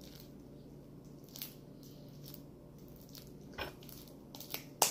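Sticky homemade slime being kneaded and pulled off the hands, giving a few brief sticky clicks and squelches, the loudest near the end.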